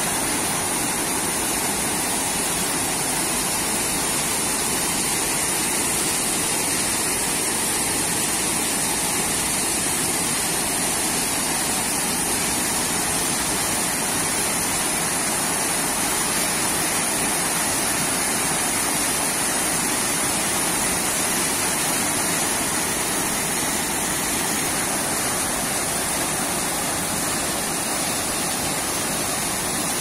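Waterfall rushing steadily: river water pouring over a concrete weir and splashing down over rocks.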